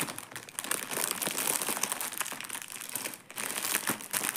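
Thin clear plastic bag crinkling as hands stuff bundled skeins of embroidery floss into it and press it down, with a brief lull about three seconds in.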